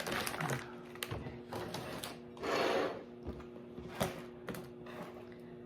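Kitchen handling sounds while red onion is fetched for a salad: two short rustles and a few light clicks and knocks, over a faint steady hum.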